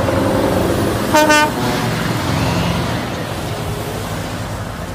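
Scania container truck running as it passes, with a short horn toot about a second in; the engine sound then slowly fades.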